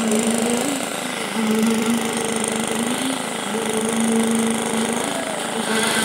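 Concrete poker vibrator running with a steady hum. Its pitch sags and recovers a few times as the poker is worked into the wet concrete.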